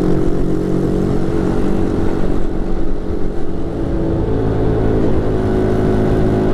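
Small two-stroke moped engine running steadily while riding, its pitch holding almost level, with wind and road rumble on the helmet-mounted microphone.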